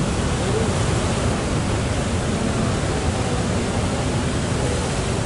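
Steady roar of storm wind and heavy breaking surf in a cyclone-driven sea.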